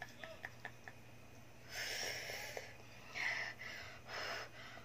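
A woman blowing hard, hissing breaths out through her mouth, three in a row with the first the longest, to cool a mouth burning from spicy noodles.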